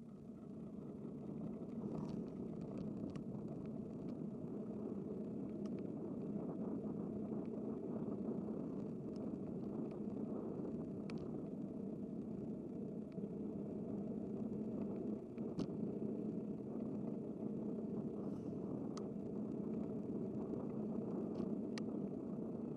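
Steady road and traffic rumble heard from a moving bicycle, swelling up at the start and dying away near the end, with a few light scattered clicks.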